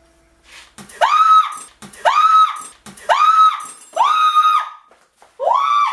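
A high-pitched voice screaming in a run of short, loud, evenly repeated cries, each rising quickly to a held high note, about one a second.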